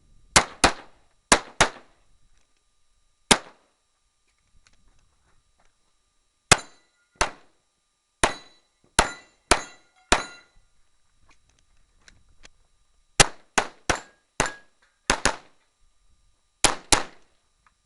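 Glock 34 9mm pistol firing during a timed stage run: about twenty sharp shots, mostly in quick pairs and short strings, with pauses of a few seconds between groups. A few shots are followed by a short metallic ring, typical of hits on steel targets.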